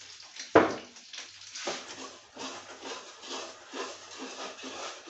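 Kitchen handling sounds at a cooktop: one sharp knock about half a second in, then irregular clattering and scraping of pans and utensils.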